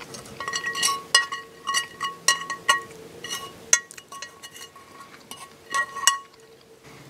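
Metal fork clinking and scraping against a cast iron pan while picking up food: about a dozen sharp, irregular clinks, each ringing briefly, then a quiet stretch near the end.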